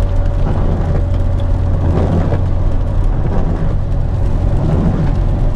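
Steady in-cabin noise of a car driving on a rain-wet road: a constant low drone of engine and tyres, with a hiss of tyres on wet tarmac.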